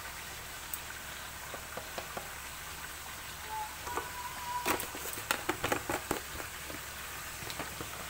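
Chicken and masala paste sizzling steadily in a kadai as it is fried down with spices, with a quick run of sharp utensil clinks against the pan about five to six seconds in.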